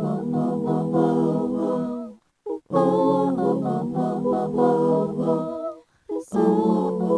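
Layered a cappella voices singing held chords in close harmony. The singing breaks off briefly twice, about two seconds in and again about six seconds in.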